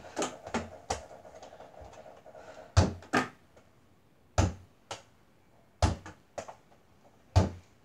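Small ball from a mini basketball hoop thumping against the door-mounted backboard and bouncing on the floor. The sharp thumps come mostly in pairs about half a second apart, four times.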